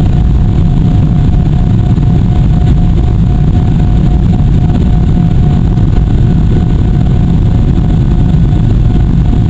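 Boeing 777-300 cabin noise during the climb after takeoff: a loud, steady, deep roar of the jet engines and rushing air heard from a window seat over the wing, with a faint steady whine above it.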